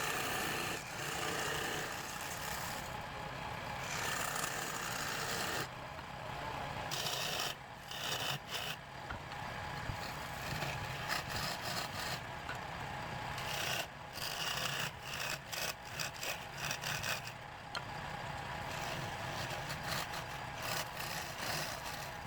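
Wood lathe running while a hand turning tool cuts and scrapes the spinning wood, in rasping bursts of a second or two with a few sharp ticks.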